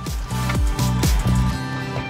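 Background music: an electronic beat with several heavy bass-drum hits over held notes, giving way near the end to a soft sustained chord.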